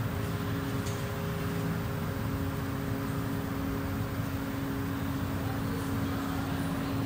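Steady machine hum with a few held low tones over an even hiss, without change.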